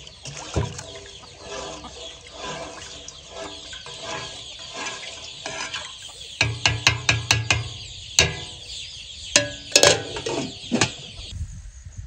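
Chickens clucking, and in the second half a run of sharp knocks from a wooden spatula striking the aluminium pot as it stirs.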